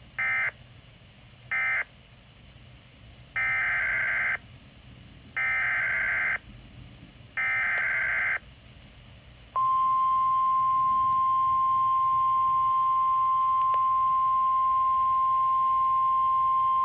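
Weather-radio emergency alert signalling. Two short bursts of digital data tones are followed by three one-second SAME header bursts of the same screechy data tones, one a second apart. Then, about ten seconds in, the steady 1050 Hz weather alarm tone starts and holds.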